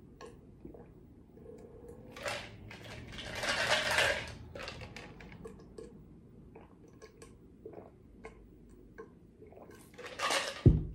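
Ice sliding and rattling in a plastic tumbler tipped up to drink, with sipping and a few small clinks; the loudest rush of ice and liquid comes about three to four seconds in. A brief low thump near the end.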